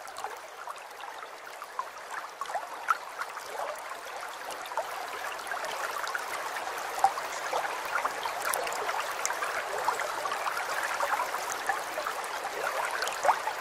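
Running water trickling and babbling steadily, with many small splashes and drips.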